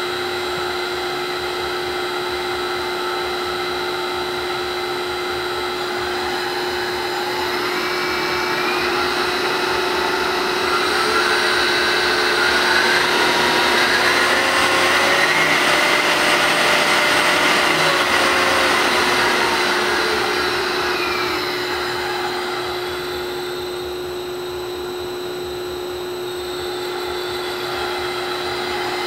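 Vertical milling machine's spindle motor, run from a variable-frequency drive, whirring over a steady hum. Its whine rises as the speed is turned up over several seconds, holds, then falls back as it is turned down.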